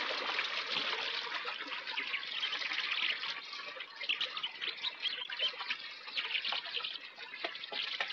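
Fountain water splashing and trickling, a steady rush of falling water that eases a little after a few seconds.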